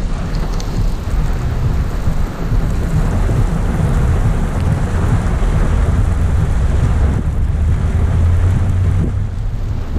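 Rain falling steadily, with a low rumble underneath that swells about seven seconds in.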